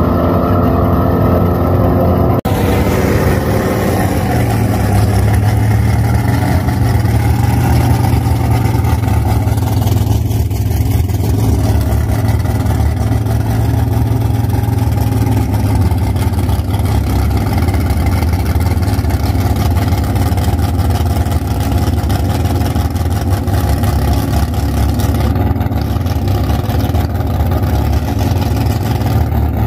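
Chevrolet Nova drag car's engine idling loud and close, steady and deep. In the first two seconds, before a cut, cars running at the far end of the drag strip are heard.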